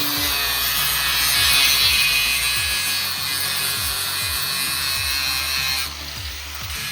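A handheld power tool running with a steady high-pitched whine, quieter from about six seconds in, over background music with a regular low beat.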